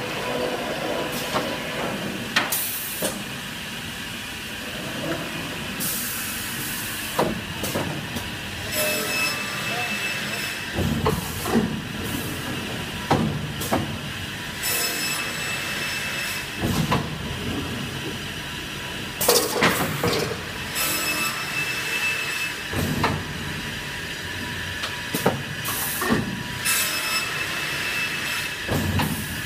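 Stromab CT-600 cross-cut saw line running: boards clatter and knock along the conveyors and through the saw, with short bursts of compressed-air hiss and a steady thin whine over a machine hum.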